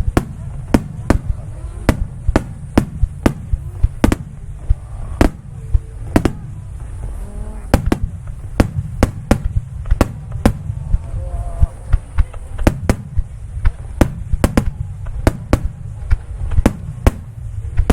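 Aerial firework shells bursting in a rapid, irregular barrage: dozens of sharp bangs, about two a second, over a continuous low rumble.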